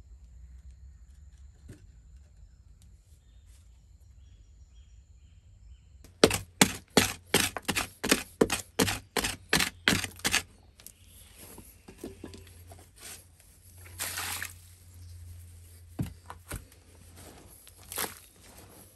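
A wooden digging stick stabbed repeatedly into packed earth, about three sharp strikes a second for some four seconds, starting after a few seconds of quiet. Then come scrapes and scattered knocks of soil being loosened and scooped out by hand.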